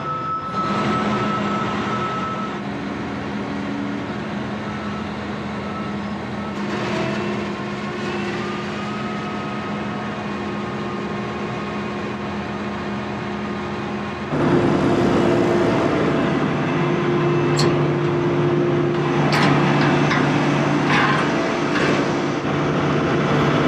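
An engine running steadily. About fourteen seconds in, it gives way to a louder, lower-pitched engine sound, with a few short clicks near the end.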